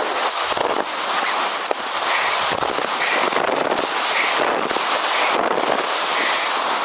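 Strong wind buffeting the microphone: a loud, dense, unbroken rush of noise.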